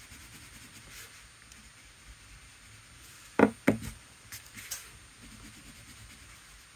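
Two sharp knocks a split second apart as a wax watercolour crayon is set down on the desk, then a few lighter clicks as another crayon is picked up.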